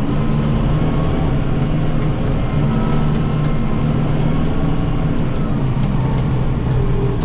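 Kubota M7060 tractor's diesel engine running steadily while working an 80-inch Pronovost snowblower.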